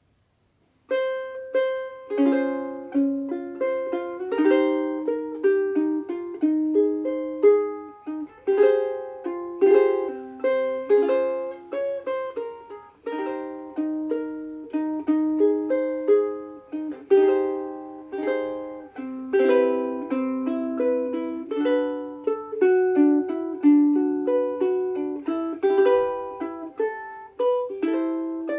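KOU SBSK-LN soprano longneck ukulele, with a solid Hawaiian koa body, played solo as a plucked melody over chords. It starts about a second in.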